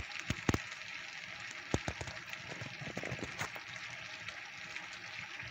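Beef and broccoli in sauce sizzling in a nonstick frying pan: a steady hiss with scattered crackles and pops, most of them in the first three and a half seconds.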